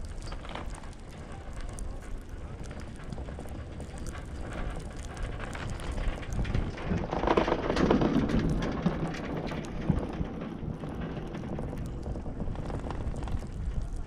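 Riding a Riblet center-pole double chairlift: a steady rush of wind and cable noise with scattered light clicks. It swells to a louder rumble and clatter about seven seconds in, as the chair passes over a lift tower's sheave train.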